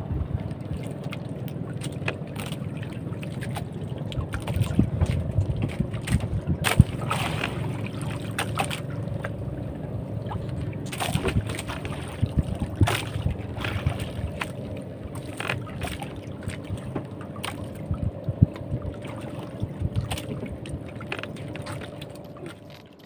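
Small outrigger fishing boat's engine running steadily while under way, with water and wind noise and scattered short clicks and knocks.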